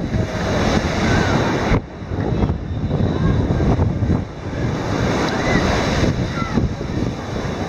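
Ocean surf breaking and washing up a beach, with wind buffeting the microphone.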